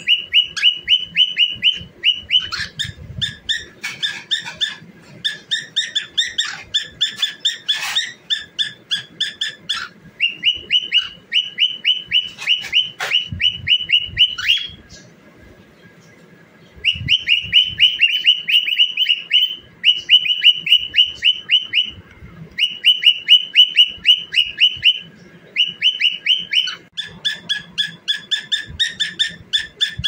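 Cockatiel singing: long runs of quick, high, repeated chirping whistles, several notes a second, with a short break a little past halfway.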